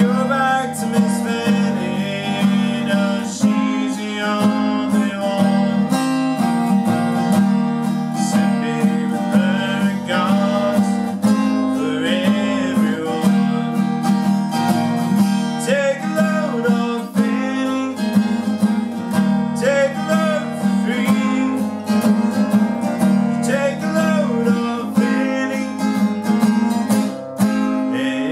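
Steel-string acoustic guitar, capoed, strummed steadily in a strong rhythm, with a man's voice singing over it in places.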